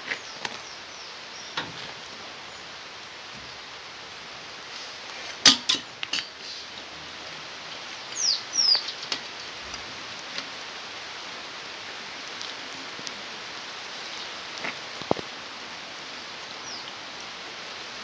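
Scattered metal clicks and knocks from a bicycle being handled and adjusted, the loudest cluster about five and a half seconds in and a single click near fifteen seconds, over a steady background hiss. Two short high falling chirps come about eight seconds in.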